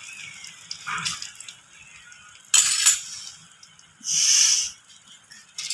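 An omelette cooking gently in an aluminium frying pan while a metal spoon is put down into a steel bowl with a short clatter. About four seconds in comes a brief, loud hiss lasting under a second.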